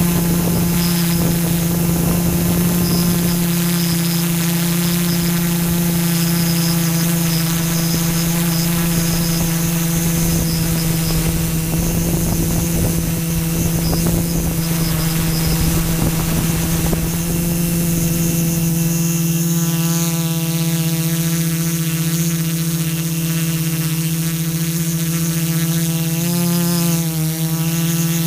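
Small drone's electric motors and propellers whining steadily, heard from the onboard camera, with wind rumbling on the microphone for the first two-thirds. Near the end the pitch dips briefly and comes back up as the motors slow and speed up again.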